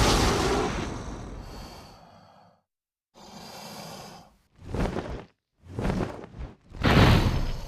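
Dinosaur sound effect: a long, breathy blast that fades out over about two seconds, then four shorter breathy bursts with silence between them.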